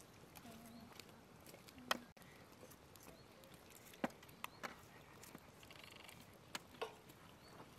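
Faint high bird chirps over a quiet background hiss, with a few sharp clicks scattered through, the loudest about two and four seconds in.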